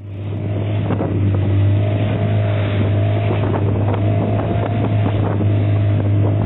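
Outboard motor of a small fishing boat running steadily while under way, a constant low drone, with wind buffeting the microphone and water rushing past the hull.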